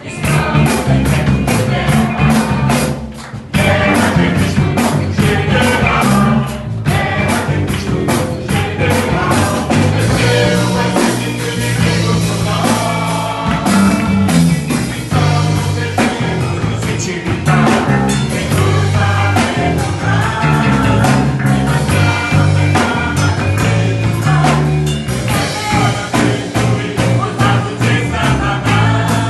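A band playing a rock-style song, with a singer over drums, bass and guitar. The music drops briefly about three seconds in.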